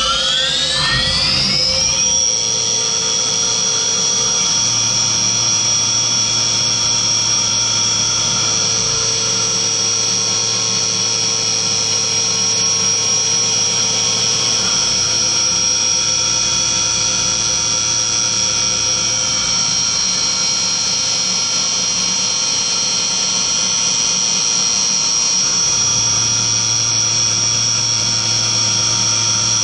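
Skyfire SVM1 CNC milling machine's spindle spinning up with a rising whine over the first two seconds, then holding a steady high whine as a carbide end mill cuts aluminium. A lower hum drops out for a few seconds and returns.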